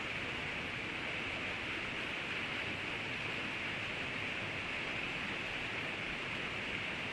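River water rushing steadily, an even hiss with no birdsong standing out.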